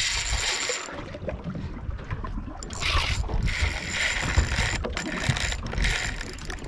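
Saltwater spinning reel being cranked in several short bursts, its gears whirring as a hooked fish is reeled to the boat, over a low rumble of the boat.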